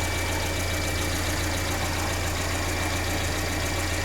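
Peugeot 407's EW10J4 2.0-litre four-cylinder petrol engine idling steadily, with a thin steady high whine over it.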